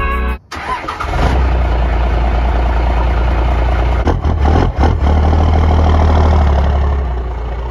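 A truck engine cranks and starts about half a second in, then settles into a deep, loud idle heard at the large exhaust tip.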